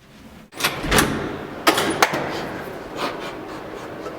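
A door being handled as someone leaves: a heavy thump about a second in, then two sharp knocks, over a steady hiss.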